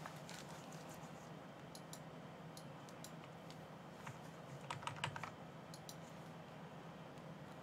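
Faint computer keyboard typing: scattered key clicks, with a quick run of clicks about five seconds in, over a low steady hum.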